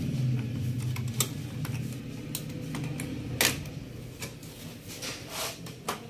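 Scattered sharp clicks and taps of hands working on a desktop PC's parts, closing the processor socket's metal retention plate and lever and handling the case, with the loudest click about three and a half seconds in. A low steady hum runs underneath.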